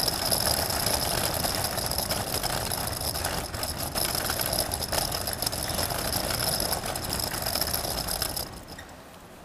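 Street din with a vehicle engine running and a rattle, over a steady high whine. About eight and a half seconds in, it falls away abruptly to a much quieter background.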